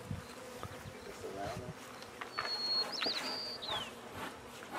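Honey bees buzzing around an open hive during the installation of a new colony, a steady low hum. About halfway through comes a brief high whistle that wavers and ends in a falling glide.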